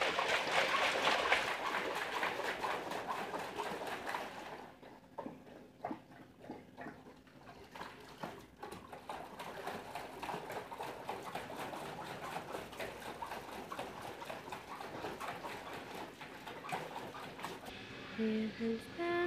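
Water splashing in a shallow plastic tray as a dog bites and plays in it, irregular splashes and slaps over a rush of running water that is loudest for the first few seconds.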